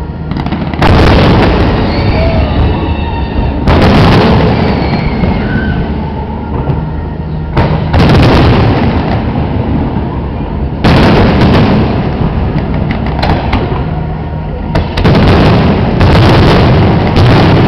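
Fireworks display: aerial shells bursting in loud booms, about eight sudden blasts, each trailing off slowly.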